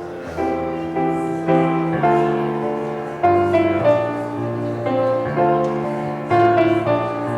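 Keyboard instrument playing slow chords, changing about every half second to second.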